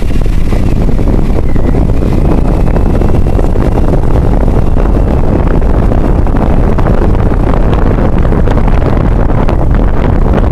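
A car driving along a paved street: loud, steady wind rumble on the microphone over the road and engine noise.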